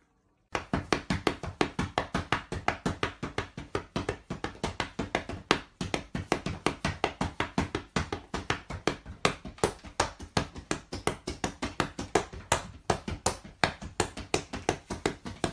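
Rapid, even slaps or taps, about five a second, of something beating against a leather sofa cushion.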